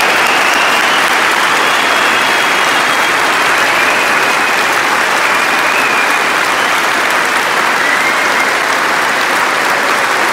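A packed football stadium crowd applauding steadily: a sustained tribute applause from the whole ground. A few faint thin high tones drift over the clapping.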